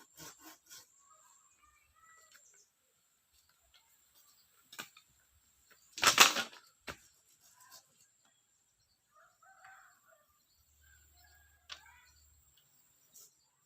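Village chickens: a short burst of wing flapping about six seconds in, with scattered soft clucks and a few clicks around it.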